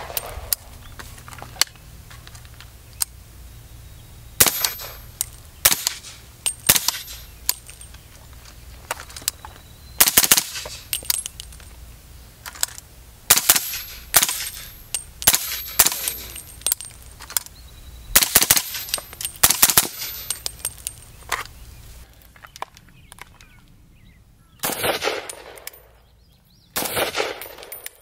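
Suppressed 7.62 rifle fire: single shots and quick strings of two or three, each a sharp crack with a short echo. Near the end, a few shots with a longer echo come from a second rifle.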